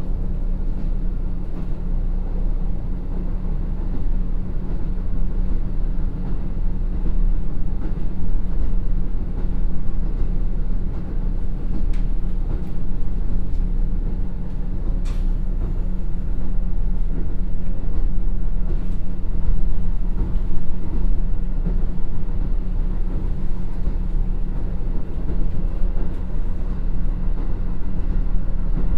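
Cabin running sound of a KiHa 54 diesel railcar, with its two Niigata DMF13HS diesel engines: a steady low engine hum with wheel-on-rail rumble at about 60 km/h. A couple of sharp clicks come about twelve and fifteen seconds in.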